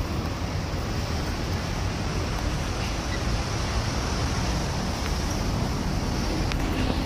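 Steady city street noise: a continuous low rumble of traffic.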